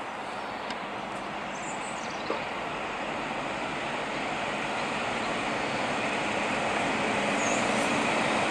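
Midland Pullman High Speed Train, its Class 43 diesel power car leading, approaching along the platform: a steady diesel engine and wheel rumble that grows steadily louder as it draws nearer.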